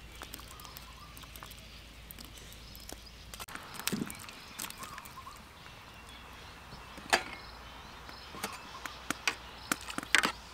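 A large wok of stew simmering, with a handful of sharp clicks and pops scattered over a faint steady background.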